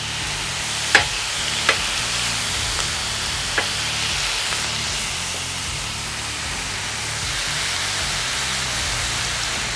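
Smash burger patties, onions and buttered shaved ham sizzling steadily on a hot flat-top griddle, with a few sharp clicks in the first few seconds.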